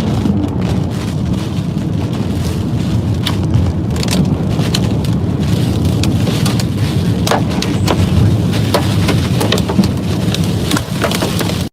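Heavy rain pelting a moving car, with a steady low rumble and many sharp hits against the body that come thicker in the second half.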